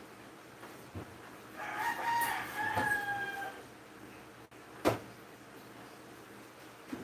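A rooster crowing once: a drawn-out call ending on a long held note, starting about one and a half seconds in. A single sharp knock about five seconds in, the loudest sound here.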